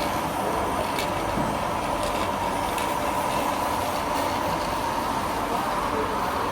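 Semi-automatic perfume filling and crimping machine running with a steady mechanical hum and occasional faint clicks.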